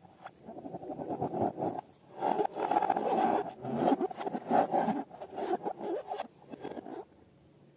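Slime being worked by hand, giving a sticky crackling, squishing sound in a few bursts that stops about seven seconds in.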